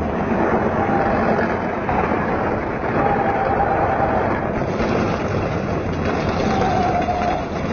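Steady rush of wind and road noise with the hum of a vehicle driving at speed, heard on a phone microphone from a moving car. A faint wavering tone comes and goes a few times.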